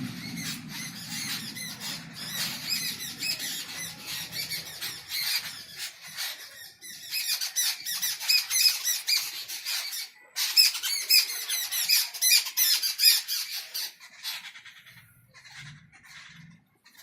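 Small birds chirping in a dense, rapid chorus, loudest in the middle and thinning out near the end. A low hum fades away over the first few seconds.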